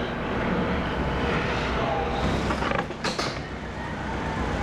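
A wooden door being handled, its latch and hinges clicking and creaking in a short cluster about three seconds in, over a steady low hum.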